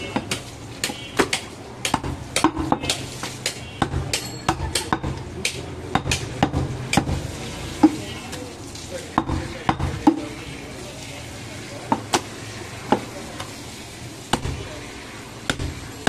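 A butcher's long knife cutting through goat meat and knocking against a wooden chopping block in sharp, irregular taps, about one or two a second, over a low steady background hum.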